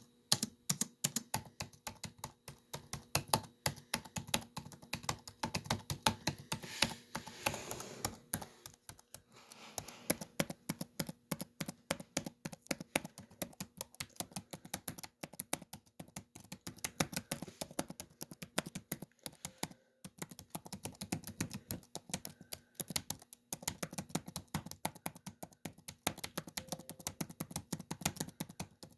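Typing on a laptop keyboard: rapid, irregular key clicks with a couple of brief pauses.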